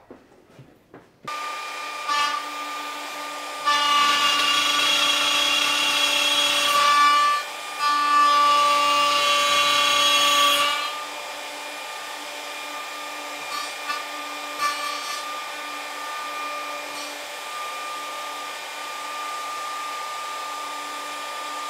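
Plunge router with a straight bit started about a second in, running with a steady whine. Twice, between about 4 and 11 seconds in, it cuts louder as the bit passes through the board, routing through-dovetail pins in the jig. After that it runs on without a load.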